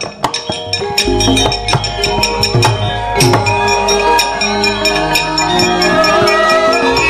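Javanese gamelan music: struck metal keys ring out a melody over repeated sharp knocks, and a deep low tone comes in about a second in.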